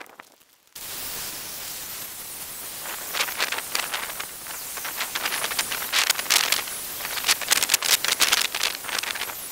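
Handheld gas torch lit about a second in and burning with a steady hiss, with irregular crackles through the second half as the flame is played over the freshly carved pine.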